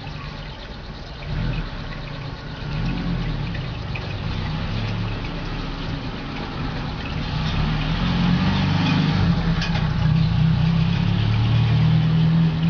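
A low motor hum whose pitch wavers, growing louder toward the end, with some water noise over it.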